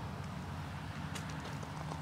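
A few light footsteps about a second in, over a steady low outdoor rumble.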